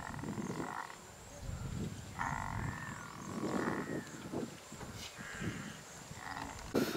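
Asian elephants calling: four high, drawn-out calls, each under a second long, over low, uneven rumbling.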